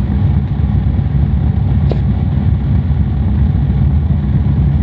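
Wind buffeting the camera's microphone: a loud, steady low rumble with no clear pitch.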